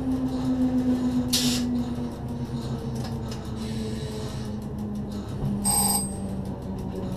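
Cab of a Z 6400 electric multiple unit running into a station: the traction drive's whine slowly falls in pitch as the train slows, over the rumble of the wheels on the rails. A short hiss comes about a second and a half in, and a brief high-pitched ringing tone near six seconds.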